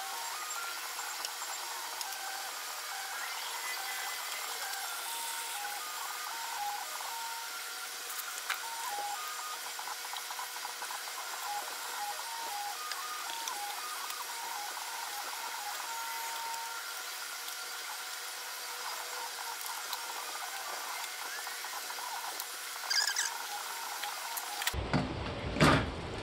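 A steady, even hiss with faint short wavering tones, then a few clunks near the end.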